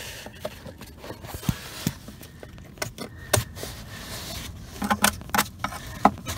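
A screwdriver tapping and scraping on corroded car body metal: scattered sharp clicks and clinks that come quicker near the end.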